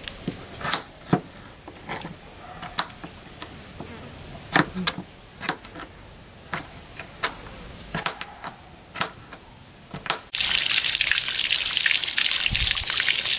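Kitchen knife chopping green papaya on a cutting board: irregular sharp taps, about one or two a second. About ten seconds in, water pouring and splashing over hands begins, much louder and steady.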